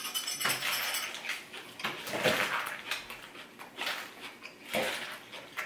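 Metal serving tongs lifting dressed Caesar salad from a wooden bowl into a small ceramic bowl: irregular rustling of wet lettuce leaves and scraping, with a few sharp clicks of the tongs, alongside chewing.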